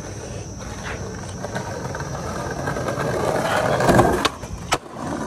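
Skateboard wheels rolling over brick and concrete pavement, growing louder as the board approaches, then two sharp clacks of the board striking the ledge about half a second apart near the end.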